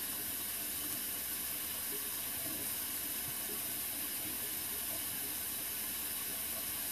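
Bathroom sink tap running cold water down the drain pipe: a steady rushing hiss with no change in level.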